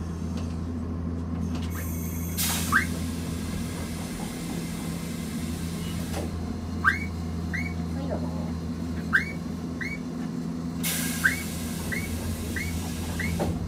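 A stopped Keifuku Randen tram's cab with a steady electrical hum, and two long stretches of hiss. Short high chirps, each dropping in pitch, repeat about nine times through the middle and end.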